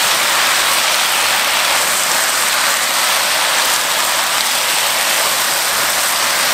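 Fish cake strips and shishito peppers sizzling steadily in a hot frying pan as they are stir-fried in sauce, the liquid cooking off.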